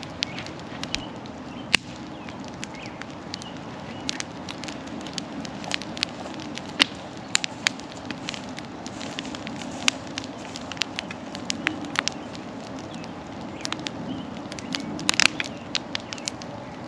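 Wood bonfire crackling, with sharp irregular pops of burning logs over a steady low rush. A quick flurry of pops comes near the end.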